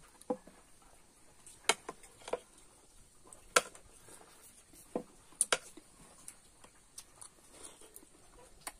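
Metal spoons clicking and scraping against a plastic bowl and glass mugs during eating: about eight short, sharp clicks at irregular intervals.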